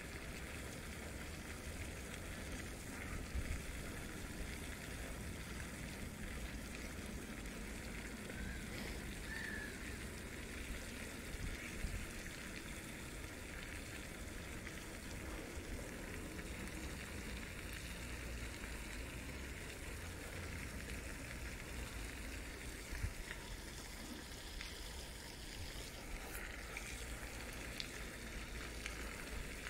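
Steady outdoor background hiss with a low rumble underneath, broken by a few faint knocks.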